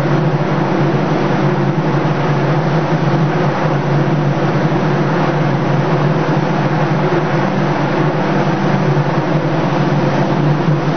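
Spray booth running: a steady, loud machine hum from its exhaust fan with an even rushing hiss over it, the spray gun in use throughout.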